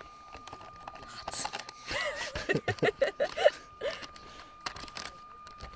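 A spoon stirring inside an AlpineAire foil freeze-dried meal pouch, the bag crinkling with scattered small clicks and rustles. A person's voice comes in briefly as a few short syllables about two to three and a half seconds in.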